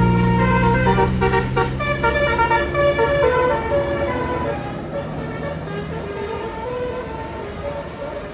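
A bus's 'telolet basuri' musical horn playing a quick tune of short notes that step up and down in pitch, over the low hum of the bus engine. The notes and the engine fade over the second half.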